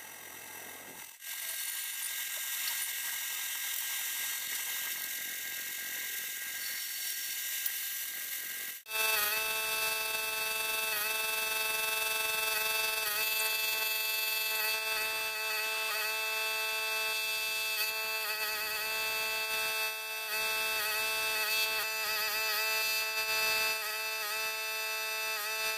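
Metal lathe turning a large steel shaft, the tool cutting with a steady high hiss. About nine seconds in, after a brief break, a steady whine of several held tones sets in and carries on.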